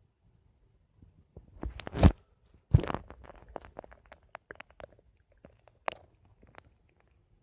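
Stomach gurgling: after a quiet second, two loud gurgles about two and three seconds in, then a run of short pops and bubbling gurgles that slowly trail off.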